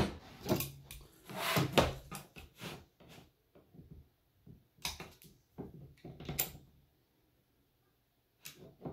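Knocks, scrapes and clicks of a wall tile and tools being handled on a folding table: a metal level set down, the tile slid across the tabletop with a longer scrape about a second and a half in, and duckbill locking pliers clamped onto the tile's scored edge.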